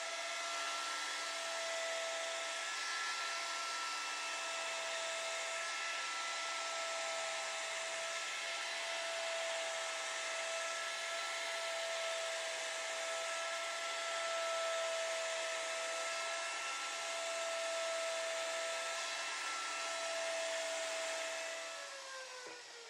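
Handheld electric wood router running at speed with a steady high whine. Near the end it is switched off and the pitch falls as the motor spins down.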